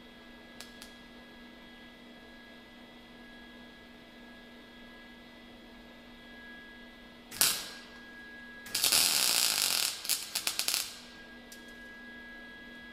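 Welder tack-welding a steel crossbar: a steady hum, then a short burst of arc about seven seconds in, and a longer burst of about a second a little later that breaks off into a few short sputters.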